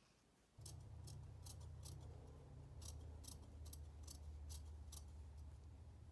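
Dressmaker's shears snipping along the edge of a pad-stitched collar interfacing, about ten crisp cuts at two to three a second with a short pause partway. A faint low steady hum starts with the first cut and runs beneath the snipping.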